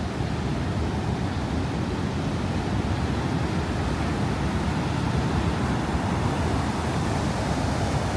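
Steady roar of Niagara's American Falls close at hand: an even, dense rush of falling water, heaviest in the low end.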